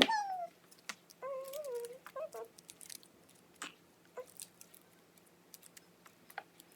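Dry leaves crackling and crinkling in short, scattered bursts as they are handled, with a sharp click right at the start. About a second in, a short wavering hummed vocal sound.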